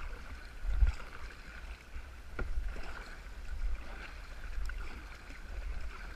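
Kayak paddles dipping and splashing as two people paddle a tandem kayak, with a few sharp knocks. A low rumble of wind on the GoPro's microphone runs underneath.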